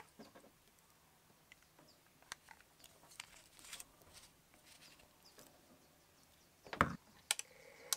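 Handling noise of a power cable and a plastic 12 V cigarette-lighter socket and plug: faint rustles and small clicks, with a louder knock about seven seconds in and a couple of sharp clicks near the end as the plug is pushed into the socket.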